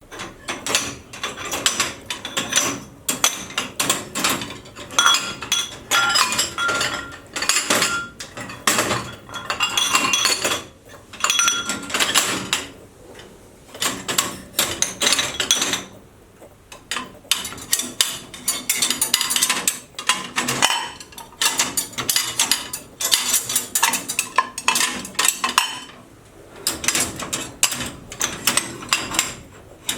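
Bowls and plates being set upside down in a dish rack, a busy run of clattering clinks, some ringing briefly. There are short lulls about 13, 16 and 26 seconds in.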